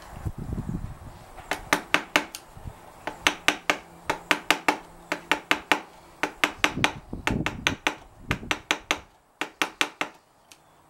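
Rapid sharp metallic taps of a hand tool on a vintage VW Beetle speedometer's metal housing, in runs of several taps about four or five a second, with short pauses between runs.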